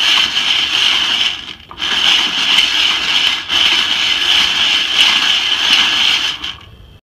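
Whirley Pop popcorn popper being hand-cranked to stir roasting coffee beans: a steady hissing rattle of beans tumbling in the pan. It drops out briefly about a second and a half in and again near the end.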